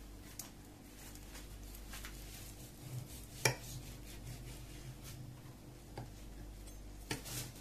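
Knife and fork cutting into a baked piece of pork on a plate, with a few scattered clinks of metal against the plate, the sharpest about halfway through. A steady low hum runs underneath.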